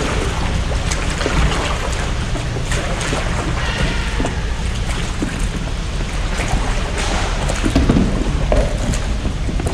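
Wind buffeting the microphone over water lapping against a small boat, a steady rumbling wash with a few brief crackles.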